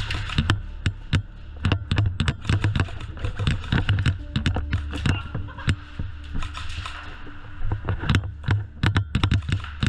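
Airsoft guns firing in rapid, irregular cracks and pops, several a second, over a low steady rumble, heard muffled through a GoPro's clear protective case.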